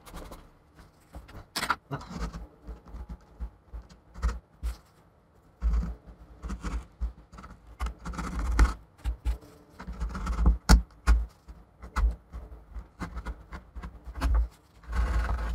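Irregular scraping, rubbing and clicks as old display adhesive tape is worked off the edge of an iMac's aluminium housing, with low handling thumps.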